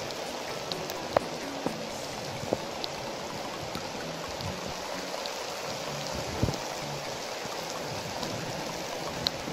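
Steady rain falling, an even hiss with a few sharper ticks of single drops landing close by, the loudest about a second in and again a little past six seconds.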